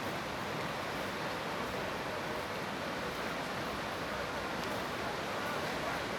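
Steady, even wash of sea surf on the beach, mixed with wind noise.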